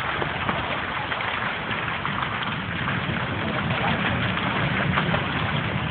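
Steady roar and crackle of a burning gasoline tanker truck, with a low rumble underneath.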